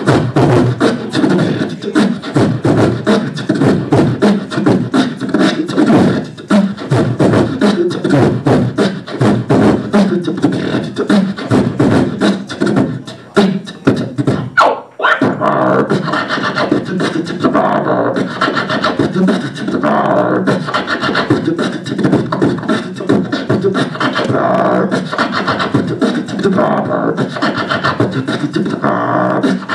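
Solo vocal beatbox into a handheld microphone: a fast, dense beat of mouth-made kick, snare and hi-hat sounds. About halfway through there is a short break, then the beat carries on with more pitched, hummed tones pulsing over it.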